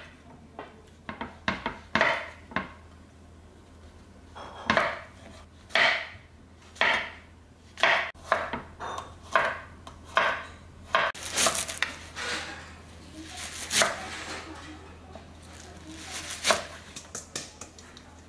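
Kitchen knife slicing garlic cloves on a wooden cutting board: separate knocks about a second apart, then a quicker run of cuts partway through.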